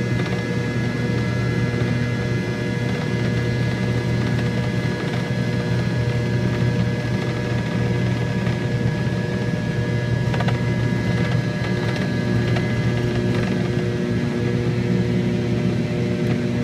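Steady cabin hum of a McDonnell Douglas MD-80 airliner taxiing, from its rear-mounted Pratt & Whitney JT8D turbofan engines, with a low drone and several steady whining tones over it.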